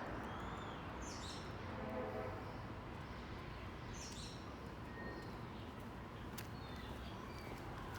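Outdoor background ambience: a steady low rumble, with birds chirping about a second in and again about four seconds in.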